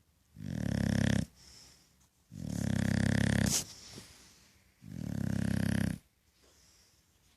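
A dog snoring loudly: three long snores, each about a second long with a fast flutter, coming about every two seconds with faint breaths between.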